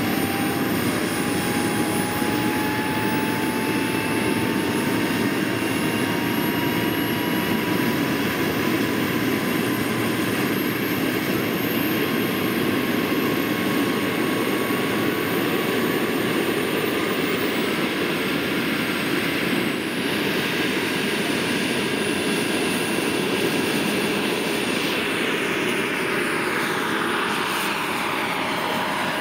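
Hughes 500 scale model helicopter's PHT-3 turbine running with a steady whine that rises slowly in pitch, over the rush of the spinning rotor. Near the end the sound shifts as the model lifts off into a low hover.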